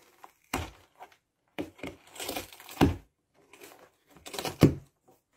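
Cardboard box crinkling and scraping as a cat moves about inside it: scattered short rustles and knocks, the loudest about three seconds in and again near the end.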